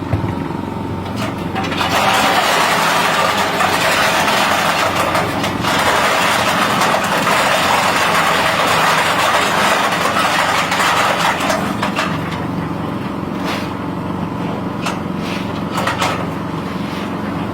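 Small engine-driven nutmeg grinding machine running steadily, with a loud harsh grinding noise over the engine from about two seconds in until about twelve seconds, then a few sharp cracks near the end.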